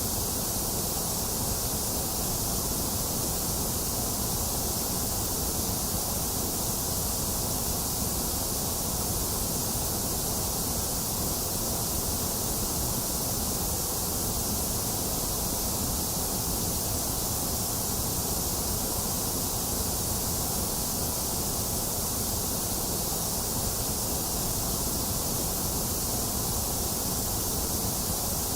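Steady, unchanging electronic white noise: an even hiss with a deep rumble underneath and a thinner middle range.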